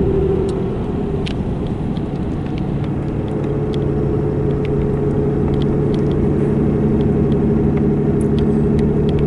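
Steady engine hum and road noise inside the cab of a 2018 Ram pickup pulling a heavy fifth-wheel camper uphill; a lower engine tone comes in about two and a half seconds in.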